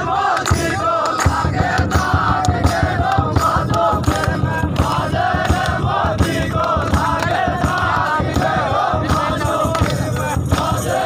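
Folk music with fast, dense drumming and a crowd singing and shouting along, carrying on without a break.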